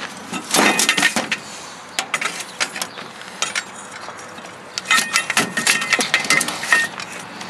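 Clinks, clicks and knocks of hands and a screwdriver working metal parts loose inside an old FM receiver's chassis during scrapping. A cluster of knocks comes about a second in, then a denser run of clinks from about five seconds in, some ringing briefly like struck sheet metal.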